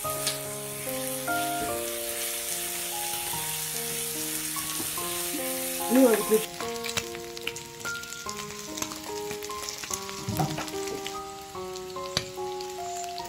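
Slices of marinated beef sizzling in oil on an electric grill pan, over background music with a melody of held notes. The sizzle drops off about halfway through, and there are a few light clicks of chopsticks on the pan.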